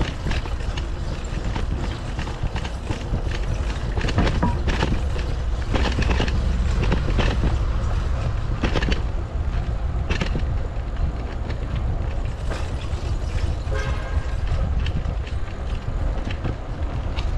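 Wind buffeting the microphone and road noise while riding a bicycle, with frequent knocks and rattles from the ride. A brief pitched tone sounds about fourteen seconds in.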